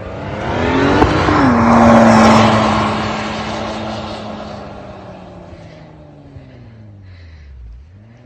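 Audi car driving hard through deep snow past the camera: the engine revs up, and a rush of churned snow is loudest as it passes about two seconds in. The engine note then holds steady and fades as the car pulls away, and near the end the revs drop and climb again.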